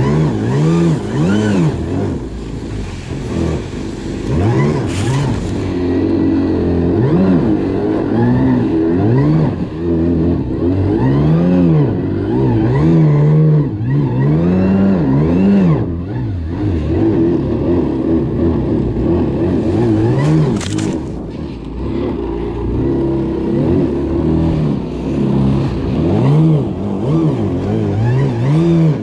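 Taiga Ekko electric snowmobile's motor whining, its pitch rising and falling over and over as the throttle is worked, over a steady rushing noise from the track in deep snow.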